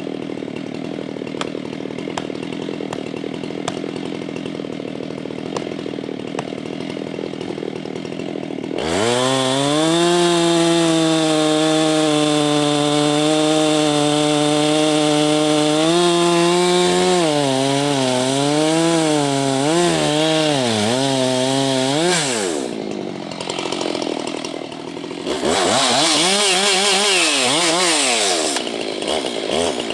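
Husqvarna 390XP two-stroke chainsaw with a 37-inch bar cutting a slab from a pine stump. For the first several seconds it is a rough, dense cutting sound. Then the engine note comes through strong and steady, wavers up and down, drops off about two-thirds of the way in, and rises and falls again near the end.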